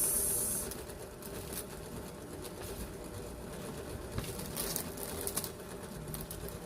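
Handling noise from small packaged drone accessories being picked up and shown: a brief crinkle of plastic right at the start, then a few light clicks and taps, over a steady low hum.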